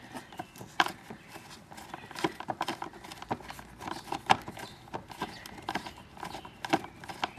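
Irregular clicks and light knocks of a screwdriver working a screw out from under the plastic fender of a ride-on toy tractor.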